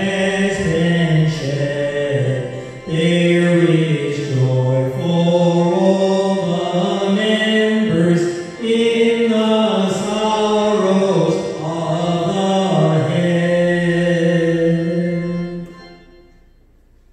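A man's voice singing a slow, chant-like offertory hymn, holding long notes with short breaks between phrases. It fades out about a second before the end.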